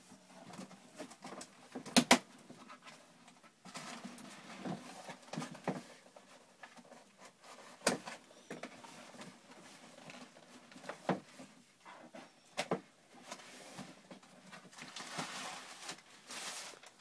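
A cardboard shoebox being opened and handled: scattered knocks and taps with stretches of rustling, and a sharp double knock about two seconds in.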